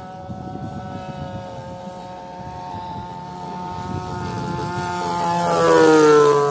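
Radio-controlled Corsair model airplane's motor and propeller giving a steady whine that grows louder as the plane comes in, then drops in pitch as it passes close about six seconds in.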